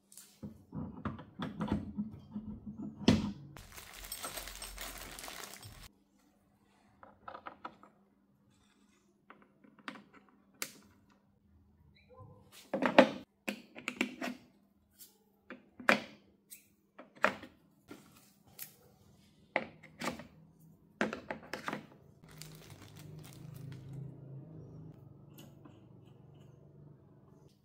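Hands-on assembly of a Scheppach oscillating edge belt and spindle sander: irregular knocks, clicks and thunks of its plastic and metal parts as the sanding belt unit and fittings are set in place and fastened. A stretch of hissy rustling comes a few seconds in, and a low rumble near the end.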